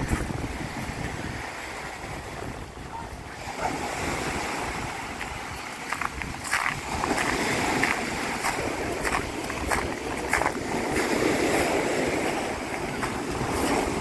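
Sea of Azov surf washing onto the shore, with wind buffeting the microphone. The wash grows louder about halfway through, and scattered sharp clicks come in the second half.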